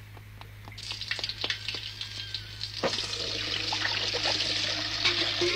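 A few light footstep taps, then water running from a street fountain into a pail, the rush growing louder, with a single knock about three seconds in.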